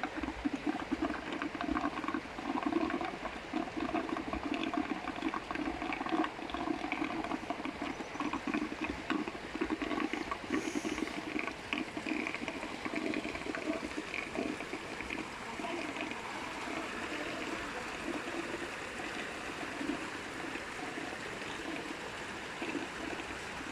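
Water running steadily into a concrete trout pond, a continuous pouring and splashing flow.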